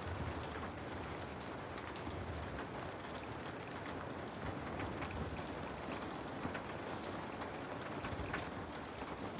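Steady rain falling, a continuous patter with scattered individual drops ticking on a surface.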